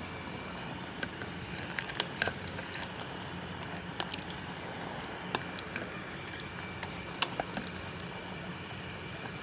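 Pot of red beans in liquid in an electric pressure cooker on sauté, heating back toward a boil: a steady low hiss with irregular sharp clicks and pops.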